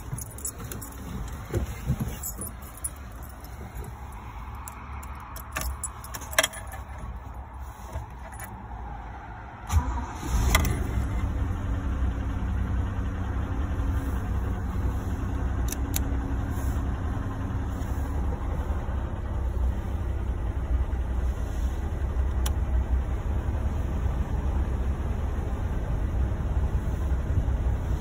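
Toyota Land Cruiser FJ60's inline-six petrol engine on a cold start: a few clicks and a jingle of keys, then the engine fires about ten seconds in and settles into a steady idle.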